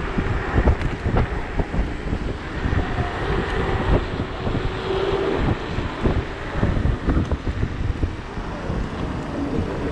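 Wind buffeting the microphone of a rider moving at speed on a Sherman electric unicycle, a gusty low rumble with faint steady tones underneath.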